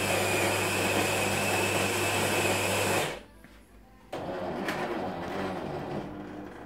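Jura Impressa F70 bean-to-cup coffee machine starting a coffee: the built-in grinder runs with a steady whirr and a thin high whine, then cuts off sharply about three seconds in. After about a second of quiet, a softer steady machine hum starts as the brewing cycle goes on.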